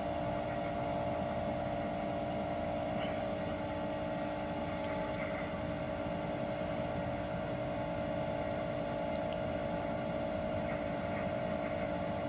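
Steady mechanical hum of running workshop machinery, an even drone with a constant pitch, with a few faint ticks of measuring tools handled over it.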